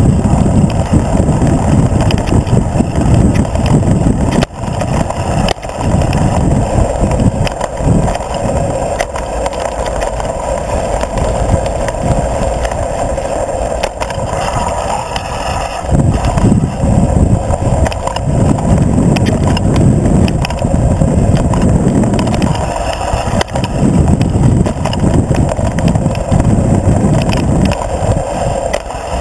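Mountain bike rolling over a dirt singletrack, heard from a camera mounted on the bike: a loud rumble of wind on the microphone and knobby tyres on the dirt, with frequent clicks and clatters as the bike rattles over stones and bumps. The rumble eases for several seconds in the middle and picks up again after.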